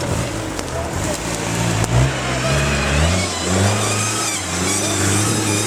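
Off-road competition vehicle's engine revving up and down under load, its note climbing about three seconds in.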